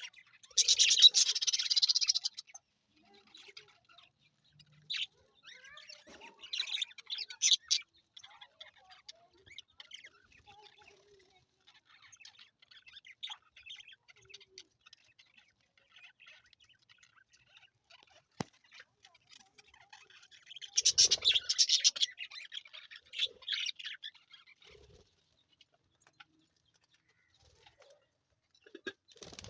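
Budgies chirping in loud, dense bursts of high-pitched twittering about a second in and again past the middle, with faint scattered chirps in between.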